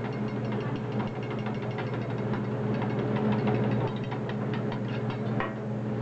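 Metal spatula clicking and scraping on a teppanyaki griddle as fried rice is worked, over a steady low hum.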